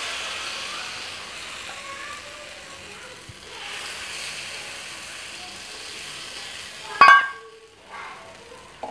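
Thin rice-flour batter sizzling on a hot oiled pan as it is poured into a lacy ghavane, the sizzle slowly dying down as the crepe sets. About seven seconds in comes one sharp, ringing metallic clink, then a softer knock.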